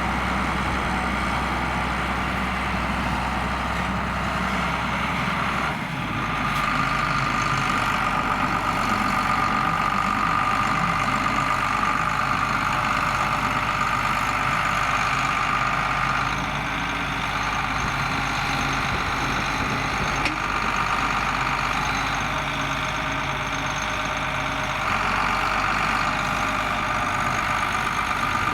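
John Deere 4850 tractor's six-cylinder turbo diesel engine running steadily under load while pulling a six-furrow plough. The tone shifts about six seconds in and again twice later.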